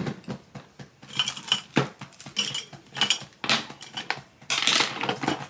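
An irregular run of light clicks and clinks, small hard objects knocking together as they are handled.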